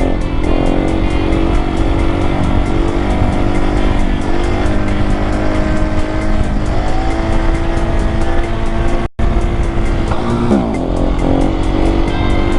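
Husqvarna 701 supermoto's single-cylinder engine running at a steady speed on the move, with wind rush. The sound cuts out for an instant about nine seconds in, and soon after the revs climb sharply.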